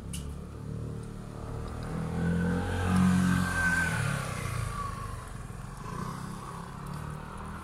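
A motor vehicle driving past, its engine hum swelling to a peak about three seconds in and then fading.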